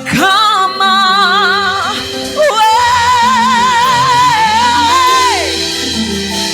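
Worship singing with vibrato, holding two long notes over sustained instrumental backing; the second note slides down and fades near the end.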